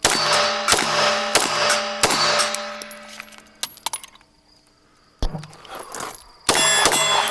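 Four 9mm pistol shots from a Glock 34, about two-thirds of a second apart, each ringing out with a long echo. Fainter clicks and bangs follow later, with a louder burst near the end.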